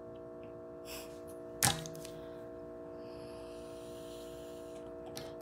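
A steady electrical hum made of several fixed tones, with one sharp click about one and a half seconds in.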